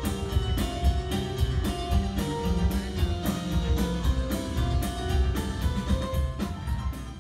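Instrumental background music with a steady drum beat and held melodic notes.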